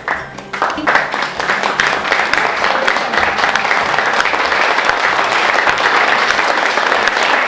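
Audience applauding: a few scattered claps at first, then steady, dense clapping from about a second in.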